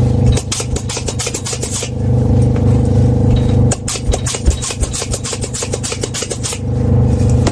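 Quick rubbing or scraping strokes on a wetsuit under repair, in two spells of rapid strokes with a pause of about two seconds between them, over a steady low hum.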